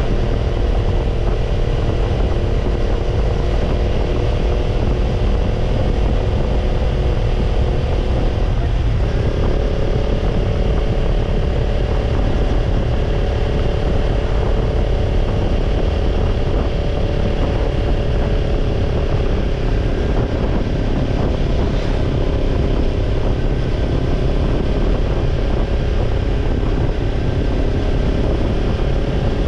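Kawasaki Ninja 250's parallel-twin engine running through a BEET NASSERT Evolution Type II titanium slip-on muffler, holding steady revs under a heavy low rumble. About nine seconds in, the note dips briefly and then settles a little higher.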